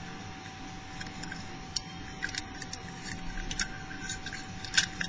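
Small metallic clicks and scrapes of a pick and tension wrench working inside a four-lever padlock's keyhole, scattered through the second half, with the sharpest click near the end.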